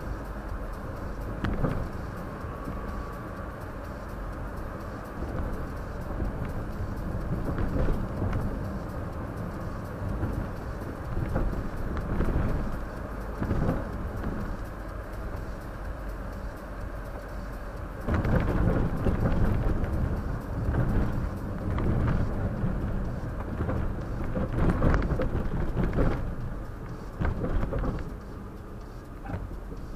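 Road and tyre rumble of a moving car heard from inside the cabin through a windshield dashcam's microphone, with scattered knocks from bumps in the road. It grows louder about eighteen seconds in and eases off again near the end.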